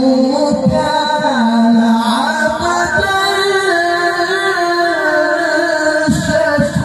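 Male qari reciting the Quran in melodic tilawah style into a handheld microphone: long held notes with ornamented turns, climbing to a higher pitch about halfway through.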